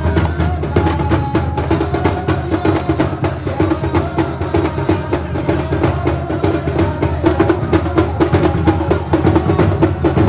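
Ratib drumming: many hand-beaten drums playing a fast, dense, unbroken rhythm over a steady held drone.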